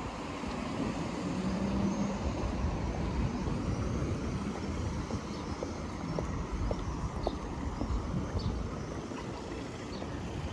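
City street traffic: a steady low rumble of cars and heavier vehicles on a wide road, with an engine hum standing out briefly early in the stretch. A few faint light clicks come about halfway through.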